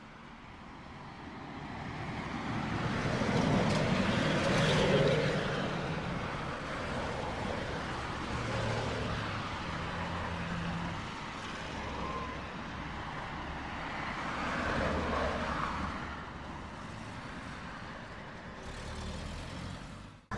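Street traffic: motor vehicles passing, the engine and road noise swelling about three to five seconds in and again around fifteen seconds.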